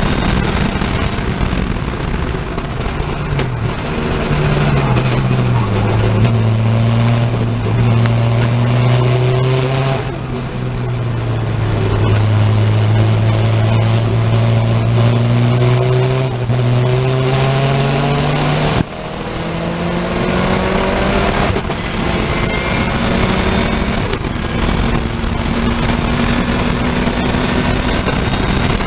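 Saloon race car's engine heard from inside the car at racing speed. About 4–6 s in its note drops as the car brakes hard and shifts down for a corner. It then climbs steadily under full acceleration, with a sharp upshift about 19 s in, and pulls on at high speed.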